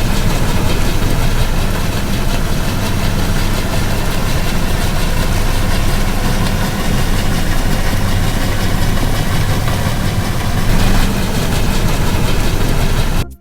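A vessel's engine running steadily: a loud, constant drone with several steady low tones under a hiss.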